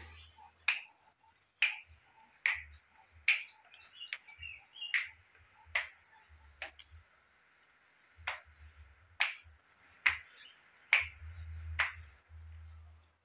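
A series of sharp clicks or strikes, about one a second, each with a short ringing tail, over a faint steady high hiss.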